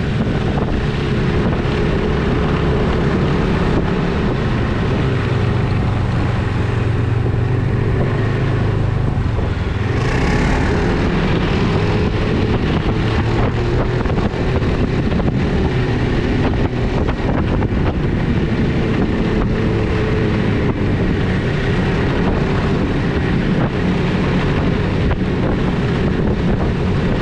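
Ski-Doo snowmobile running steadily under way, with wind buffeting the microphone. The engine note changes about ten seconds in.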